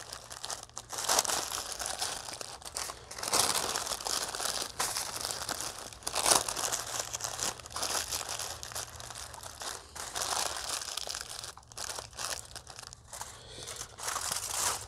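Baking paper crinkling and rustling in irregular bursts as it is folded and pressed by hand into a package.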